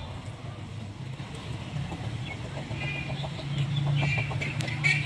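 Several short, high bird calls in the second half, over a steady low hum.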